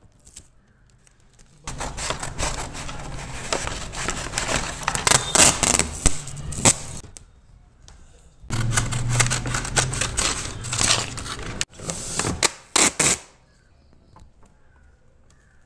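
Packing tape being pulled off the roll and pressed onto a wire cage: two long stretches of rapid clicks and ripping noise, each several seconds, with a quiet pause between.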